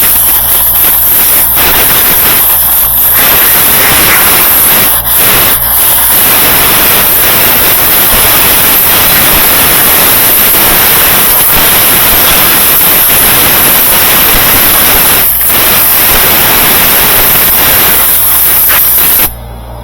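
Compressed-air blow gun hissing loudly as it blows debris out of a direct-drive washer motor, with a few brief breaks in the blast; it cuts off suddenly near the end.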